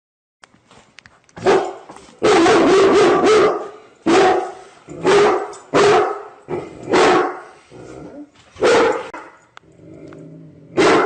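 A dog barking repeatedly: a quick run of about five barks early on, then single barks every second or so, with a lower drawn-out sound just before the last bark.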